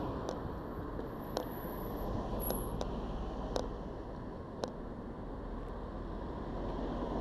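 Steady rushing noise picked up by a head-mounted camera's built-in microphone while walking. A sharp tick comes about once a second, stopping about five seconds in.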